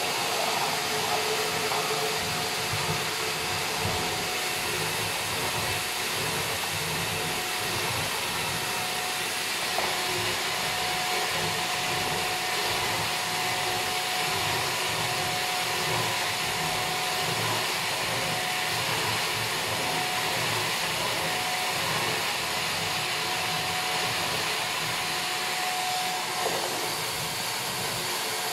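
Canister vacuum cleaner running steadily as its floor nozzle is pushed over a rug: an even rushing hiss with a thin whistle that comes and goes.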